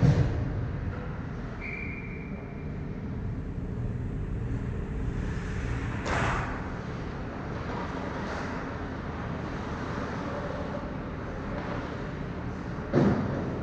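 Ice hockey rink during play: a steady low arena rumble with distant sharp knocks from the play at the far end, at the start, about six seconds in and near the end.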